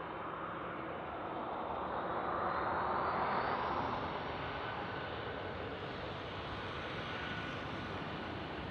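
Airbus A320-214 jet engines (CFM56-5B turbofans) roaring steadily on takeoff, swelling to loudest about three seconds in with a faint rising whine, then easing back to a steady level.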